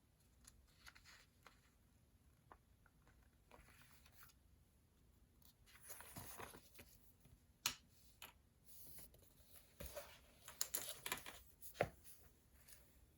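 Quiet desk-work sounds: paper rustling and being handled in soft swishes, with a few sharp clicks or taps, the loudest near the middle and near the end.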